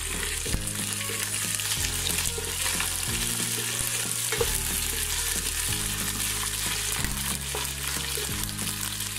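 Sliced onions and whole spices sizzling in hot oil, stirred with a wooden spatula that scrapes and ticks against the pan. This is the onions being fried toward crisp with the whole spices.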